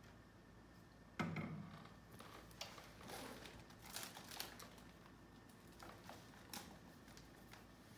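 A water bottle set down on a desk with a single thump about a second in, then faint rustling and small clicks of a hand rummaging through a backpack.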